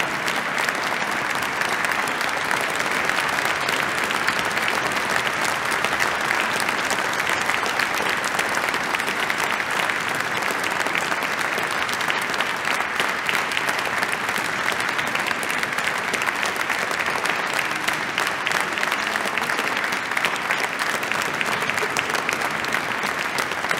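Concert audience applauding steadily: dense, continuous clapping from a large crowd that neither builds nor dies away.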